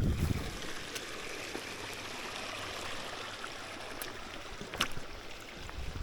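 Running water of a small stream, a steady rushing with a few sharp clicks over it.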